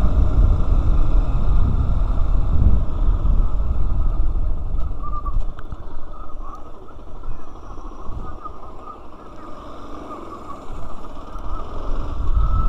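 Wind buffeting and road rumble on the microphone of a moving motorcycle, a dense low noise that eases off about halfway through and builds again near the end.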